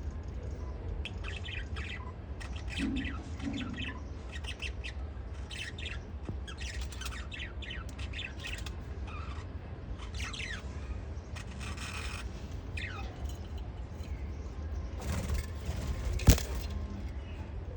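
Lovebirds chirping in quick runs of short, high chirps, over a steady low hum. A single sharp click comes near the end.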